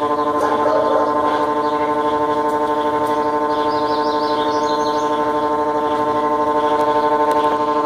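Consul Facilite washing machine spinning in its spin cycle, with a loud, steady whine of several pitched tones. It is the spin noise that remains after a new shaft was fitted, its cause unknown to the owner.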